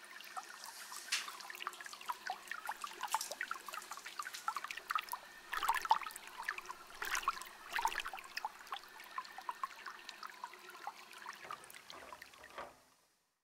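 Water running from a bathtub spout into the tub and splashing around bare feet as a hand rubs them, with many small splashes and drips. It cuts off shortly before the end.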